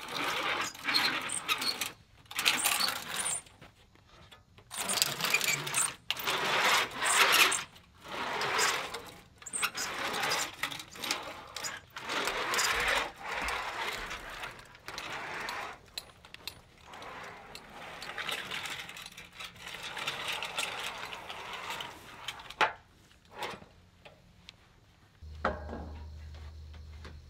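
A hand-held forming tool worked along the edge of a black standing seam steel roof panel: repeated bursts of metal scraping and rattling with short pauses between them. A steady low hum comes in near the end.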